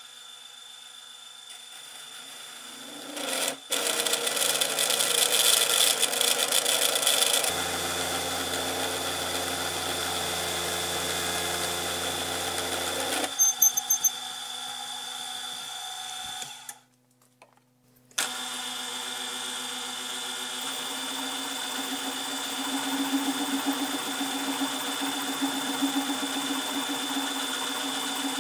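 Milling machine running an annular cutter into steel bar stock, the cutting noise growing louder about three seconds in and easing off after about seven seconds, with a few sharp clicks around fourteen seconds. After a brief break the mill's spindle runs steadily again, boring into a steel plate held in a vise.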